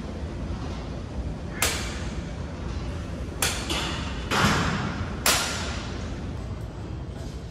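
Gym equipment knocking: four sharp knocks a second or two apart, the third drawn out a little, over a steady low rumble of the room.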